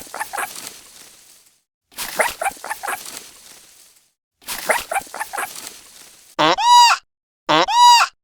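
Animal calls: three near-identical bursts of short, rapid calls, each trailing off in an echo, then about six and a half seconds in two identical high, clear calls that rise and fall in pitch.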